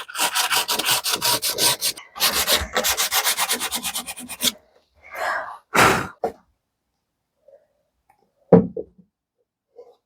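Sandpaper rubbing back and forth on wood in two runs of quick strokes, then two short scrapes and a single sharp knock.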